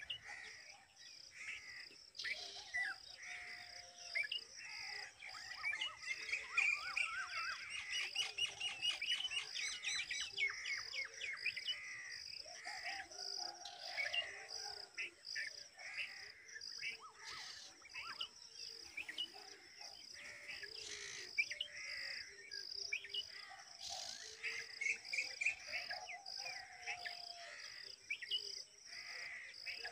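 Red-vented bulbul nestlings begging with many short high chirps, thickest about a third of the way through, over a steady, high, pulsing buzz.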